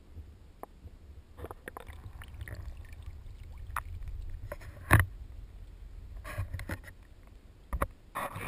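GoPro camera in its waterproof housing on a pole being lifted out of a garden pond: water sloshing against the housing and scattered handling knocks, with one loud knock about five seconds in.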